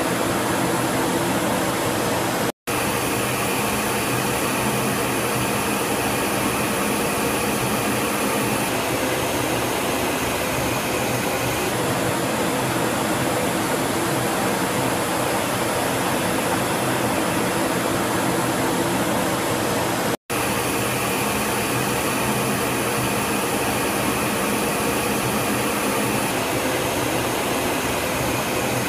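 Steady jet engine and airflow noise inside a Su-27 fighter's cockpit: a dense rushing hiss with a faint steady hum under it. It cuts out completely for an instant twice, about two and a half seconds in and again about twenty seconds in.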